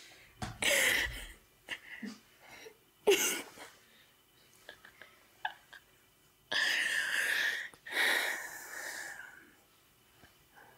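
A woman's stifled, breathless laughter close to the microphones: four breathy bursts of laughing and exhaling, the last two longest.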